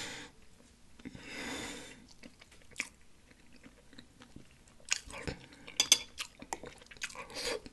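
Close-miked chewing of a mouthful of pot roast: soft wet mouth clicks and lip smacks. Two soft breaths in the first two seconds, and the clicking grows denser in the last three seconds.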